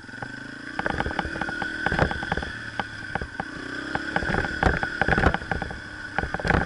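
Yamaha TTR125 dirt bike's single-cylinder four-stroke engine running under throttle, rising in pitch twice as it accelerates, with frequent knocks and rattles from the bike jolting over rough ground.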